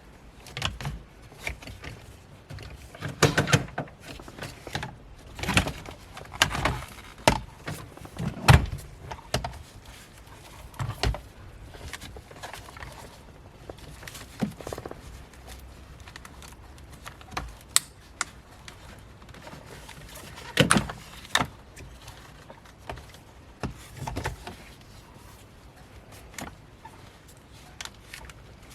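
Plastic center-console trim being pried and pulled loose: irregular clicks, knocks and rattles of plastic panels and retaining clips. The loudest knocks come about eight seconds in and again about twenty seconds in.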